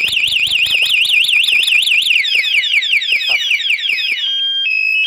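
Texno Super Two Way motorcycle anti-theft alarm siren sounding loudly. It warbles fast up and down about six times a second, switches about two seconds in to a run of falling sweeps, and near the end steps between steady tones as it cycles through its siren patterns.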